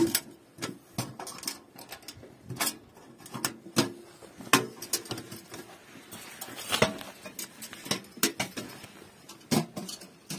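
Irregular metallic clicks and knocks of a folding sheet-metal camping stove being handled: latches snapping and panels and door knocking. A brief rustle comes a little past halfway.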